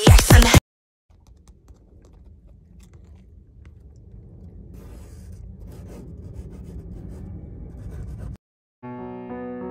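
Low rumbling noise that fades in and grows steadily louder, with faint scattered crackles and clicks, then cuts off suddenly near the end. Soft piano music begins just after.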